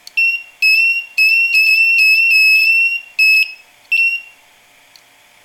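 Wagan Tech 400 W power inverter's built-in buzzer sounding as the supply lead is touched to its positive input terminal. It gives five high-pitched beeps, two short, one held for nearly two seconds and two more short, then stops about four seconds in.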